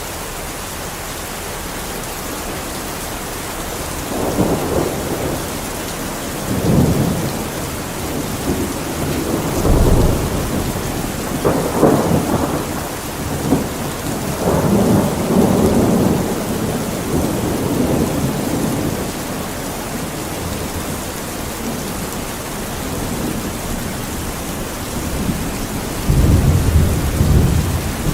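Steady heavy rain hiss with rolling thunder. The rumbles swell several times in the first half and build again near the end.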